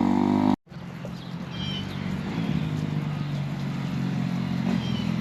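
Kawasaki KX250F dirt bike's single-cylinder four-stroke engine running steadily, now that its fuel pump is getting power again. The sound cuts out abruptly about half a second in, then the engine comes back fainter and grows gradually louder.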